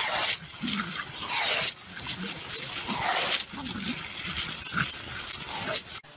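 Garden hose spraying water in loud hissing surges, with a puppy yapping as it snaps at the jet.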